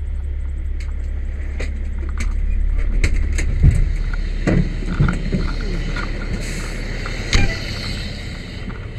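Low steady rumble of the fire truck's idling engine heard from the cab, then a series of knocks and thumps as a firefighter climbs down the truck's step and out of the cab, with the rumble dropping away about three and a half seconds in.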